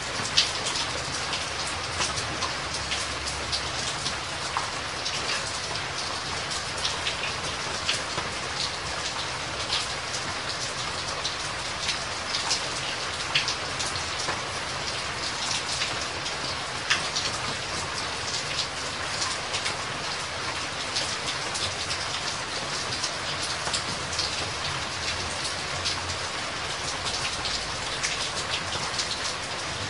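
Steady water noise: a dense, fine pattering and splashing, with a few sharper drips standing out above it.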